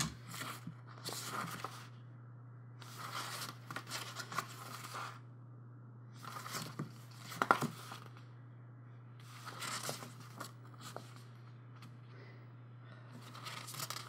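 Paper rustling and page turns as a small printed card is handled and the pages of a CD lyric booklet are flipped, coming in about five separate bursts a few seconds apart. A steady low hum runs underneath.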